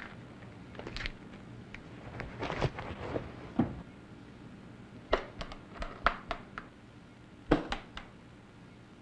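Handling noises: scattered knocks and rustles, then a run of sharp clicks late on as a hard-shell case is laid across a lap and its metal latches are handled.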